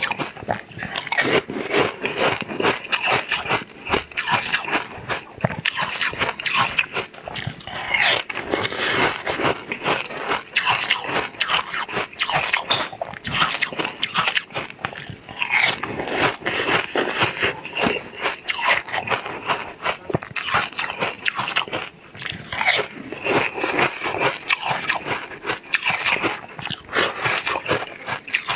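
Close-miked biting and crunching of pink ice, with wet chewing and mouth sounds: a dense run of crisp cracks and crackles throughout.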